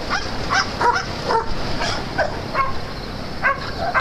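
Small dogs barking and yipping in short, high calls of varying pitch, two or three a second, with a brief lull late on.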